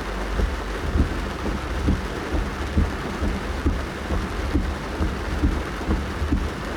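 Rain falling on a car's roof and windows, heard from inside the cabin: a steady hiss of rain with many irregular dull thuds of heavier drops hitting the roof, several a second.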